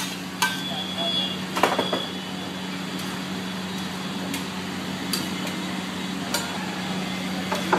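A metal cooking blade chopping and scraping food on a flat iron griddle, giving sharp metallic knocks at irregular intervals of about a second. A steady low hum runs underneath.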